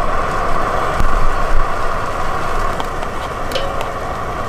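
Strong wind buffeting the microphone: a low rumbling rush over a steady hiss, with a gust about a second in. A few light clicks come near the end.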